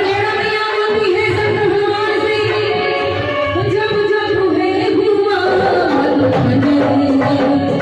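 Devotional Hindu bhajan: a singer holds long, wavering melodic notes over tabla accompaniment, the melody dipping lower about two-thirds of the way through before rising again.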